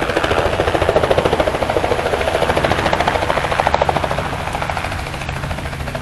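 A demolition derby car's engine running close by with a fast, even throb, loudest in the first four seconds and easing off after that.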